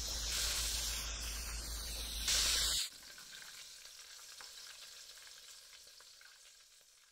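Breaded chicken breast deep-frying in hot rapeseed oil in a wok: a dense, steady sizzle that drops suddenly about three seconds in to a much fainter sizzle of the oil, which fades away near the end.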